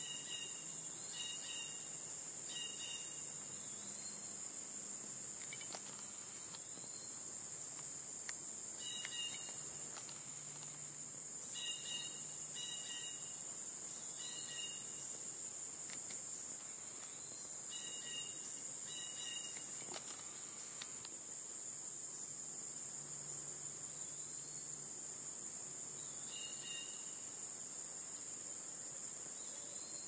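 Steady, high-pitched chorus of insects in woodland, running without a break, with short chirps repeating in pairs every second or two over it.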